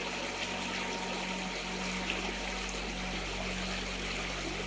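River water rushing steadily, an even unbroken wash of sound with a low steady hum underneath.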